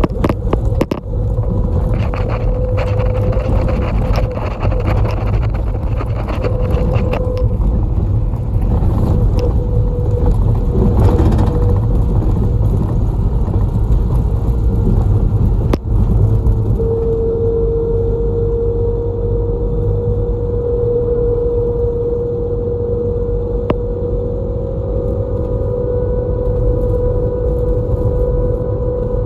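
Route bus running on the road, heard from inside the cabin: a steady low engine and road rumble with a single-pitch whine that grows louder about halfway through. Short rattling clicks come through in the first half.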